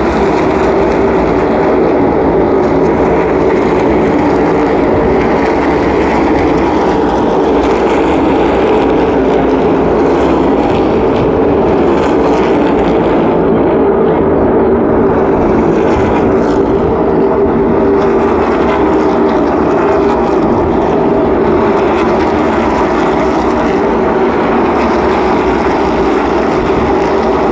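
NASCAR Cup Series stock cars' V8 engines running at race speed around the oval: a loud, steady, continuous engine sound from the field, with no single pass standing out.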